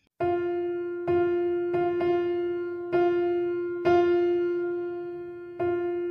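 Background music: a single keyboard note struck six times at uneven intervals, each strike ringing and slowly fading.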